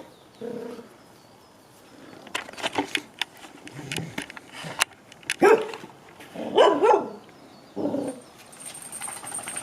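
Two dogs barking at an intruder in short, separate barks with gaps between them, the loudest a little past halfway through.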